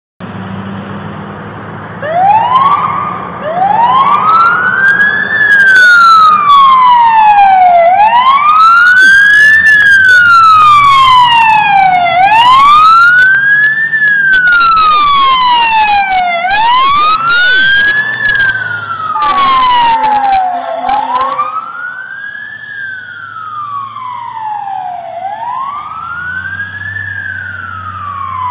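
Fire engine's siren wailing, its pitch rising and falling slowly about every four seconds, starting about two seconds in over the rumble of the truck's engine. The siren grows quieter over the last several seconds.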